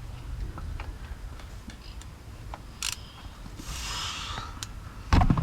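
Hand tools being worked under a vehicle: scattered metallic clicks and clinks from a ratchet and extension being fitted, a brief hiss partway through, and a heavy knock near the end.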